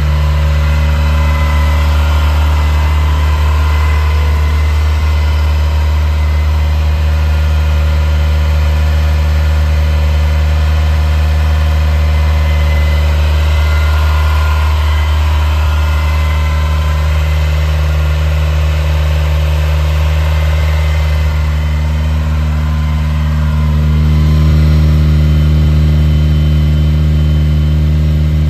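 1980 Ferrari 308 GTSi's 2.9-litre V8 idling steadily while it is still warming up after a cold start. It grows a little louder about three quarters of the way through.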